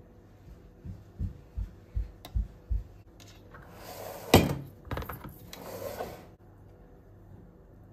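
Six soft low thumps, about two and a half a second, as crumble topping is shaken from a glass bowl. Then a metal muffin tin scraping and clattering as it is slid across the countertop, with one sharp clack as it is set down.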